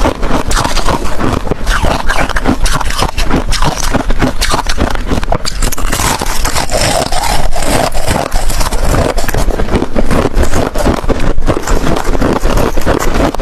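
Ice cubes being bitten and chewed close to the microphone: a rapid, unbroken run of crisp cracks and crunches.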